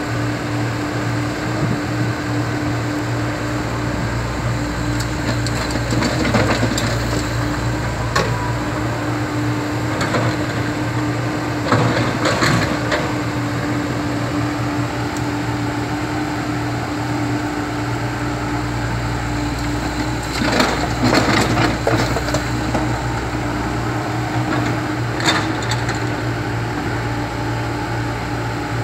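Komatsu PC70 hydraulic excavator's diesel engine running steadily while its bucket scrapes and crunches broken concrete slab. Crunching, cracking knocks come several times, loudest about halfway through and again about two-thirds of the way in.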